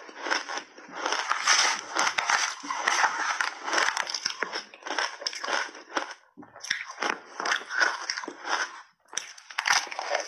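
Crunching and chewing through big mouthfuls of shaved ice dusted with milk powder: dense, crackly bites that go on steadily, with short breaks about six and nine seconds in.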